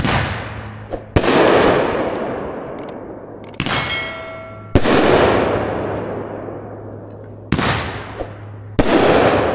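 A 19-shot, 500-gram consumer firework cake firing at a slow pace. About six sharp booming reports come one to three seconds apart, and each echoes away over a second or two.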